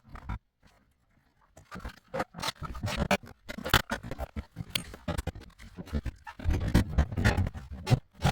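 Irregular scraping, clicking and knocking, with a short pause about half a second in.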